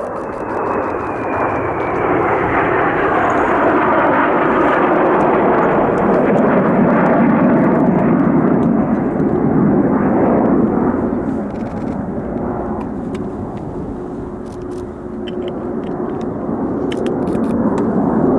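Jet roar from the Blue Impulse's Kawasaki T-4 twin-turbofan jet trainers flying by, with a whine that falls in pitch over the first few seconds as the aircraft pass. The roar builds and holds, eases off about two-thirds of the way through, then swells again near the end.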